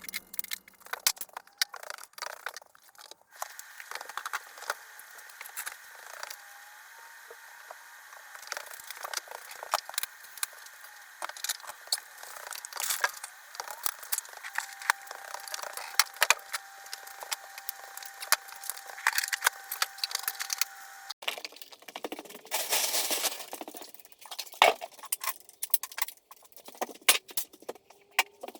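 Rapid clicking, clattering and rattling of things being handled and moved, sped up in a fast-forward timelapse of garage cleaning. A faint steady tone runs under the middle stretch, and the sound changes abruptly about two-thirds through.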